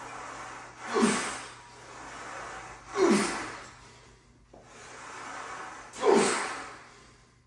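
A man's forceful, rushing exhalations, three of them about two to three seconds apart, each falling in pitch, with softer inhales between: effort breathing with each press rep during a heavy set.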